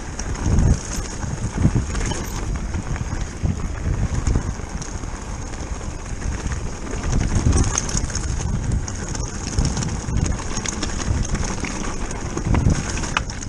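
Electric mountain bike rolling down a loose rocky track: tyres crunching over stones, with the bike rattling and knocking irregularly over the rough ground, and wind buffeting the camera microphone.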